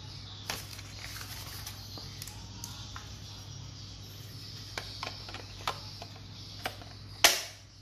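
Hard plastic clicking and knocking as a black DeWalt-to-Ingco battery adapter is handled and pushed onto a DeWalt 20V battery, ending in one loud sharp clack about seven seconds in as it seats in a tight fit. A steady low hum runs underneath.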